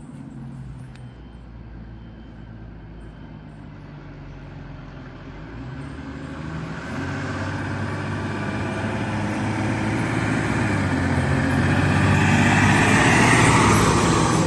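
Fire engine running, its sound building steadily from about halfway through and loudest near the end, with the engine note shifting as it does.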